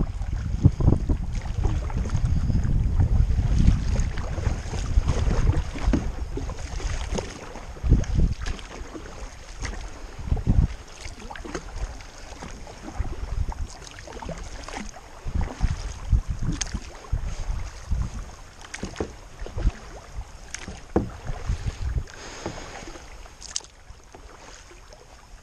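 Kayak paddle strokes: the blades dipping and splashing in the water at an uneven pace, with drips falling off them. Wind buffets the microphone for the first several seconds.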